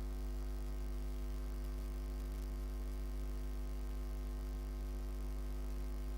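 Steady low electrical mains hum with a buzzy ladder of overtones above it.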